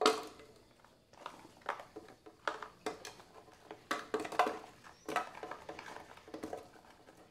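Fresh strawberries being dropped by the handful into a container: a run of irregular soft knocks and clicks, with a sharper knock right at the start.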